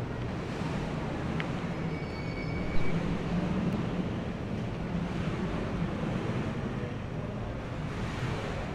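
Steady low rumble of vehicle noise in a city street. A brief thin high tone and a short knock come about two to three seconds in.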